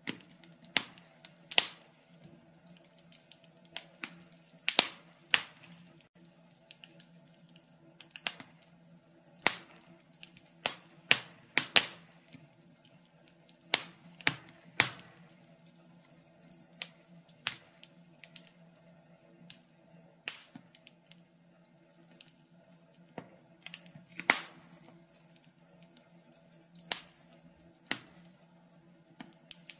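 Burning logs in a fireplace crackling: irregular sharp pops and snaps, a few of them much louder, over a faint steady hum.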